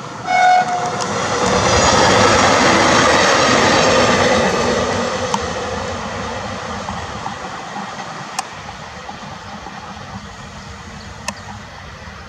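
A train horn sounds one short blast about half a second in, then a diesel multiple unit runs past, its wheel and engine noise swelling and then slowly fading. Three sharp ticks come later, as the rolling noise dies down.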